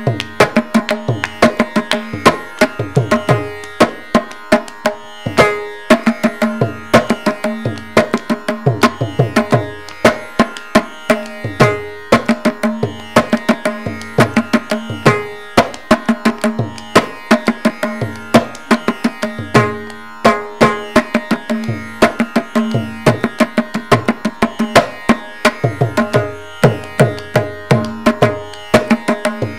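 Mridangam playing a fast percussion solo in khanda chapu tala: dense rapid strokes broken by recurring deep bass strokes, over a steady drone.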